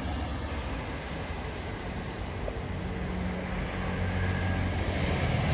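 Road traffic: a vehicle engine running steadily, growing louder near the end as it approaches.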